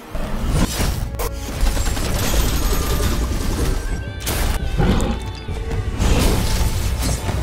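Cinematic trailer soundtrack: music with a heavy low rumble, punctuated by a few sharp impact hits and whooshes, with mechanical robot-style sound effects.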